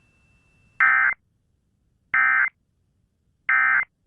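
Emergency Alert System SAME end-of-message data bursts: three short, identical buzzy digital tones spaced a little over a second apart, marking the end of the tornado warning message.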